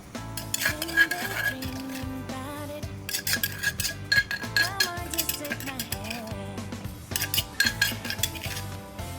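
Kitchen utensils clinking and scraping against a bowl in bursts as a kohlrabi som tam salad is mixed, over background music.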